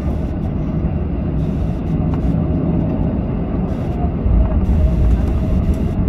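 Cabin noise inside a Ryanair Boeing 737 taxiing after landing: steady jet engine hum over a low rolling rumble, with a faint whine. The deep rumble grows louder about four seconds in.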